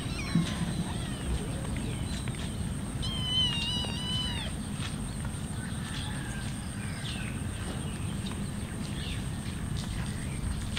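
Cats meowing now and then over steady low background noise, with one longer, clear meow about three seconds in.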